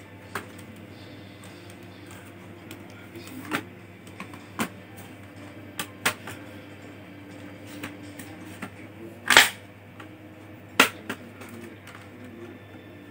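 Scattered sharp clicks and taps of small tools and laptop parts being handled during disassembly. The loudest is a knock about nine seconds in, with another about a second later.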